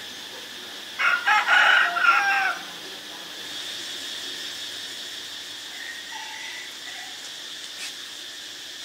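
A loud bird call about a second in, lasting about a second and a half, made of several pitched notes that bend in pitch, over a steady high-pitched background drone. A few faint short calls follow later on.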